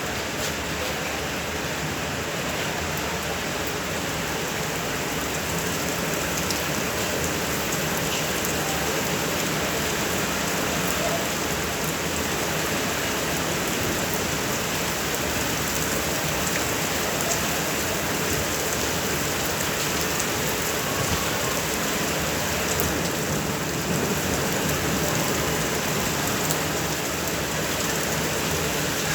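Steady rain falling, an even hiss of drops on surfaces that holds constant throughout.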